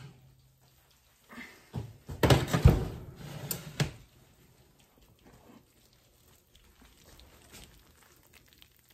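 Oven rack and door knocking and a heavy thump as a baked casserole in a glass dish is lifted out of an electric oven. The knocks come in a cluster about two to four seconds in, the heaviest in the middle, followed by faint handling clicks.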